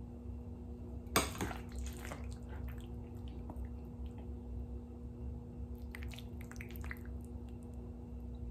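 A metal serving utensil clinking and scraping against a glass baking dish and a ceramic plate while a pasta bake is scooped out, with one sharp clink about a second in and a few lighter clicks later. A steady low hum runs underneath.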